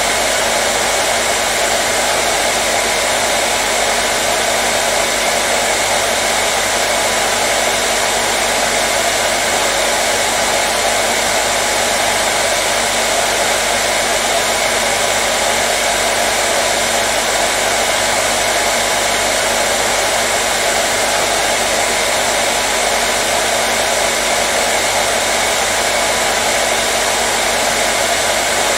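Hairdryer running steadily: a constant, even whoosh of blown air with the motor's faint hum, unchanging throughout.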